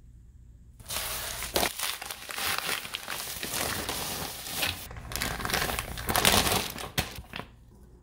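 Padded paper mailer being torn open by hand and a foil bag crinkling as it is pulled out: loud, irregular crumpling and crackling that starts about a second in and stops about seven and a half seconds in.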